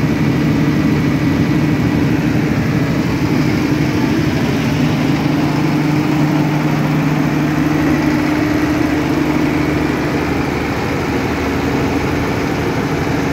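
Six-cylinder turbocharged diesel engine of a Tsuzumi TDG-250 kVA generator set running steadily at its rated speed of about 1500 rpm, with no electrical load on it.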